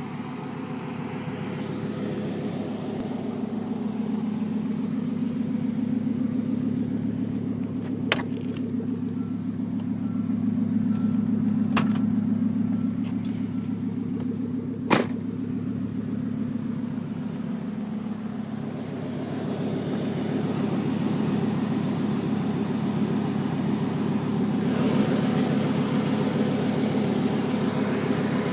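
1996 Volvo 850R's turbocharged 2.3-litre inline-five engine running, with the knock or tick from the driver's side of the engine that the owner cannot identify and thinks could be normal. Three sharp clicks stand out around the middle.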